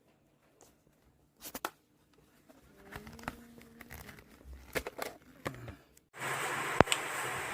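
Clicks and rustling as a small cordless handheld vacuum is handled. About six seconds in, its motor switches on with a steady whirring hiss.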